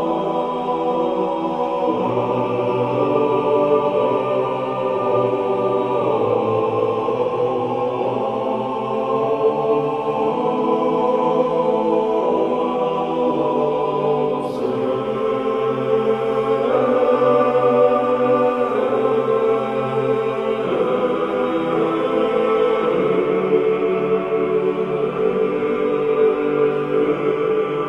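Background music: a choir singing slow, held chords in a chant-like style, the harmony shifting every few seconds.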